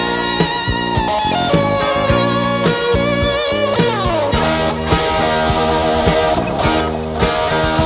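Rock music with a lead electric guitar: held notes that waver and a slide down in pitch about four seconds in, over a steady beat.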